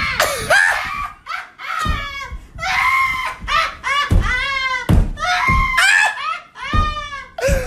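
A man laughing loudly and wildly, in a string of short, high-pitched whoops and shrieks that waver in pitch.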